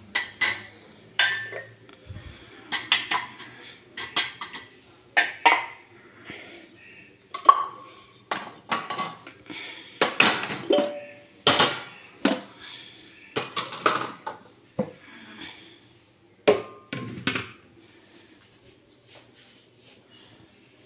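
Stainless steel pots, bowls, plates and spoons clattering and clinking as they are handled and set down, some strikes leaving a short metallic ring. The clatter dies away about three-quarters of the way through.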